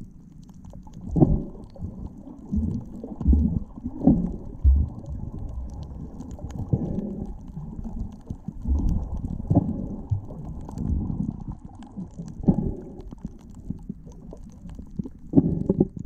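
Muffled underwater sound heard through a camera's waterproof housing: a low rumble of moving water with irregular dull thumps, about one every second or two, with next to nothing above the low range.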